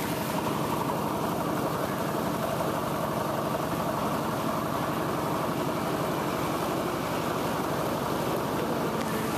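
A vehicle engine running steadily with a fast, even pulse, over the rush of fast-flowing floodwater.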